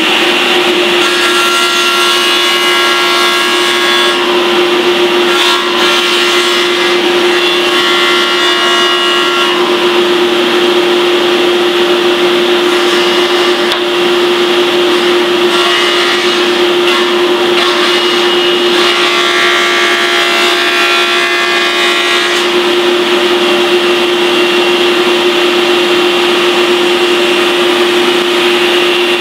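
Table saw running steadily, its blade cutting a shallow scoop across the underside of a wooden chair-seat blank as the blank is pushed over it on a jig. The cutting sound rises several times over the steady motor note, about four passes, with the blade biting into the wood on each.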